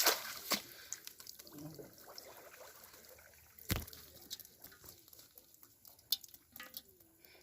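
Water dripping and trickling, with a few sharp splashes scattered through, the loudest near the start and about four seconds in.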